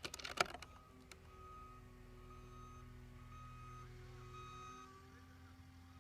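A sharp crack just after the start. Then a faint steady low hum with a high beep sounding on and off, which stops about three quarters of the way through.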